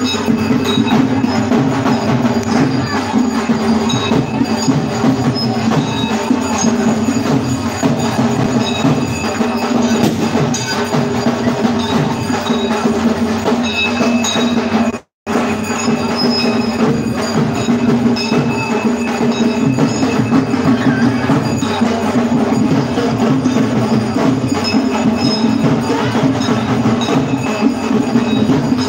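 Festival percussion: a dense, steady rhythm of drum strokes with ringing metal bell strikes over it. It cuts out for a moment about halfway.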